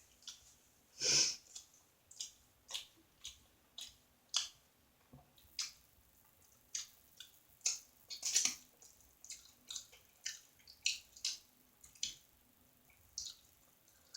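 Close-miked wet chewing and lip-smacking: a run of short, sharp mouth smacks, one or two a second, with a louder, fuller one about a second in and another about eight seconds in.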